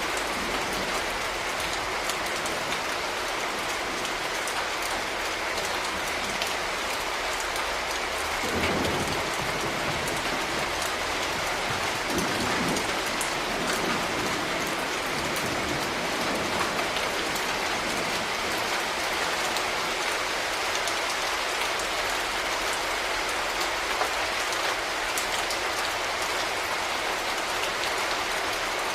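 Steady rain falling: a dense, even hiss with scattered individual drops ticking through it. A brief low rumble comes up about nine seconds in and again around twelve seconds.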